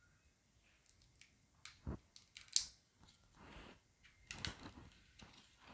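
Tarot cards being handled and turned over one at a time: light clicks and rustles of plastic-laminated card stock, with one sharper click about two and a half seconds in.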